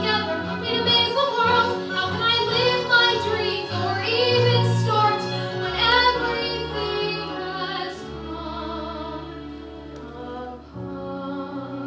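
Solo female voice singing a musical-theatre song with vibrato over a backing accompaniment. The voice stops about eight seconds in, leaving the accompaniment holding soft sustained chords.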